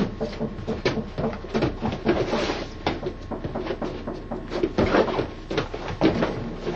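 Footfalls, scuffs and irregular thumps of two men sparring on padded gym mats, with a few louder thumps among the shuffling.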